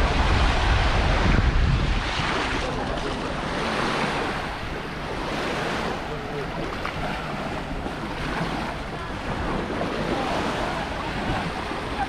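Small waves breaking and washing up the sand at the shoreline, in slow swells every couple of seconds. Wind buffets the microphone with a low rumble, hardest in the first two seconds, and faint voices of beachgoers come through.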